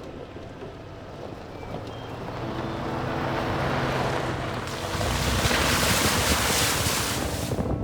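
Rushing wind and surf noise that builds over several seconds, loudest near the end, then cuts off suddenly.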